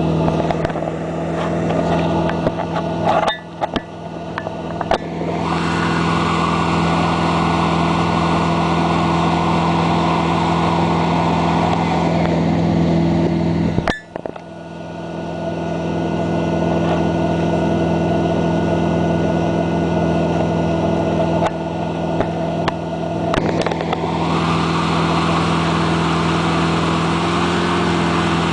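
Towing boat's engine running at a steady speed, with the wake's churning water rushing behind it. The sound drops briefly a few times around three to five seconds in and cuts out sharply for a moment about fourteen seconds in.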